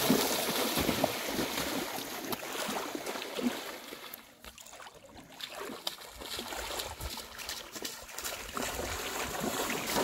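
Water splashing as a person runs and wades through shallow river water, in irregular uneven splashes. The splashing dies down about halfway through, then picks up again.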